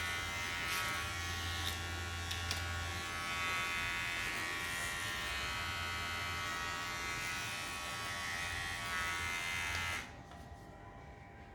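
Xiaomi Enchen cordless hair clipper switched on and running with a steady electric buzz, then switched off about ten seconds in.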